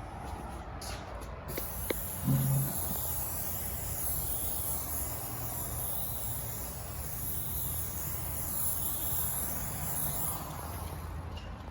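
UV-protective clear coat being sprayed onto a restored headlight lens: a steady hiss that starts about a second and a half in and wavers slowly as the spray passes across, stopping near the end. A short low thud comes about two seconds in, over a steady low hum.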